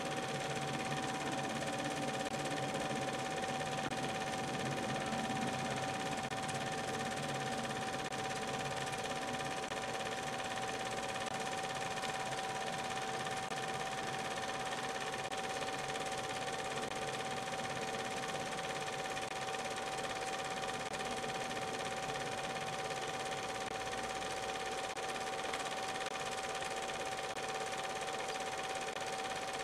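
Steady mechanical whirr with a constant hum, typical of a film projector running while a silent home movie is played back.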